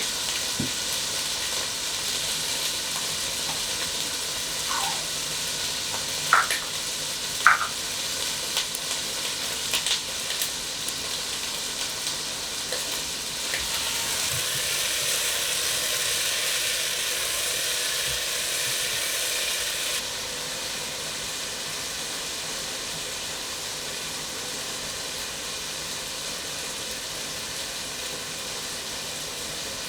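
Tomatoes sizzling in hot avocado oil in a frying pan, a steady hiss as they roast. A few short clinks sound about a quarter of the way in, and the sizzle drops a little in level about two-thirds through.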